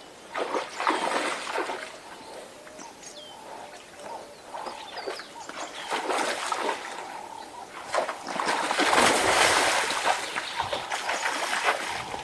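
Water splashing and sloshing in uneven bursts, loudest in the last third, with a short bird chirp about three seconds in.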